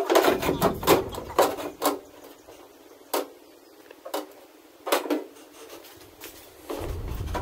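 Irregular knocks and clatter, several in quick succession and then a few single ones, with a low rumble starting near the end.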